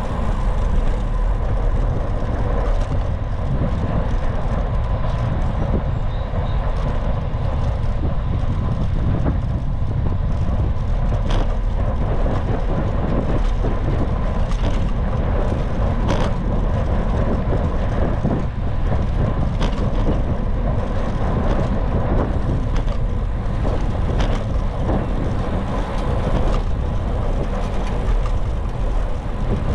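Steady rumble of wind buffeting the microphone of a camera carried on a moving bicycle, with road noise and scattered brief knocks.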